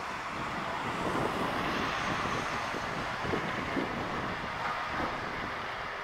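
Steady outdoor background noise, an even rumbling hiss with no clear bird calls.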